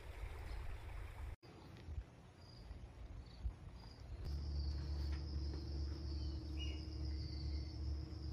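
Outdoor background noise: a low rumble that breaks off at a sudden cut about a second and a half in. About four seconds in, a steady high insect trill starts and continues over a low hum.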